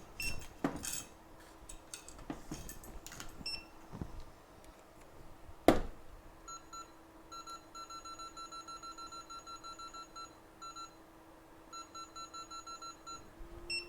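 Runs of short electronic beeps at one pitch, about four a second, from a soldering rework station being set by button presses, over a steady low hum that steps up slightly near the end. Before the beeps come light clicks and clinks of tools, with one sharp click about halfway through.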